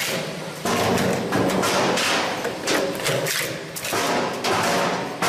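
Industrial crushing machine breaking up material, a dense run of cracks and thuds.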